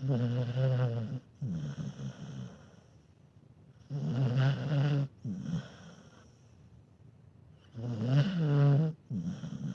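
A sleeping dog snoring: three snores about four seconds apart. Each is a loud, buzzing rattle lasting about a second, followed by a softer breath.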